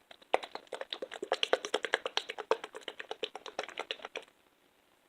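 Slime being kneaded and squeezed in the hands, giving a fast run of wet clicks and pops that stops shortly after four seconds.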